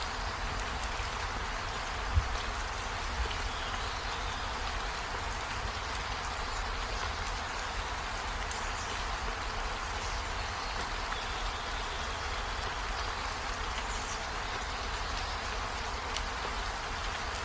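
Steady rain falling, an even hiss with a low rumble underneath and faint short high chirps scattered through it. A single sharp thump about two seconds in.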